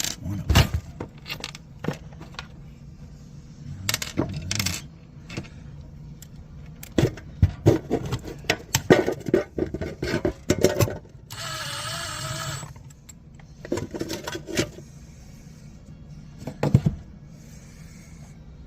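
Irregular metal clinks, taps and knocks of small hardware and hand tools being handled, busiest in the middle. A short wavering whine of about a second and a half comes about eleven seconds in.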